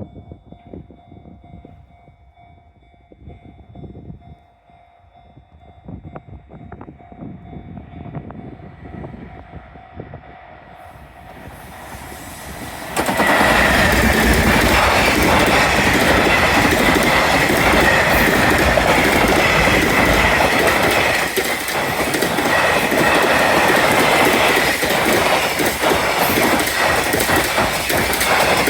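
Freight train hauled by an EF210 electric locomotive, growing louder as it approaches. About thirteen seconds in it suddenly reaches full volume and passes close by: a loud, steady rumble of wagons with fast clatter of wheels over rail joints that continues to the end.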